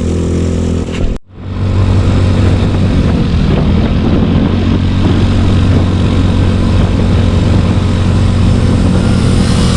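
Yamaha Mio Sporty scooter's single-cylinder engine running steadily while riding, under wind and road noise. The sound cuts out for a moment about a second in.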